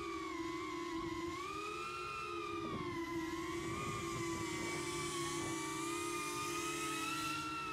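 BetaFPV Pavo25 V2 cinewhoop's motors and ducted 2.5-inch props whining in flight, the pitch wavering up and down with the throttle. A hiss builds about halfway through and cuts off suddenly near the end.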